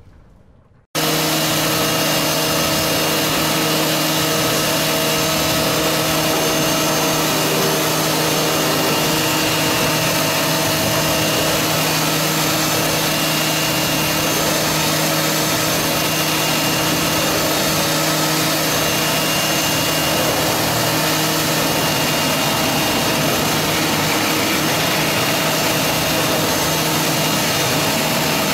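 A 1989 Fadal VMC 6030 vertical machining center running, a steady mechanical whir with a constant hum and whine. It starts abruptly about a second in and holds level.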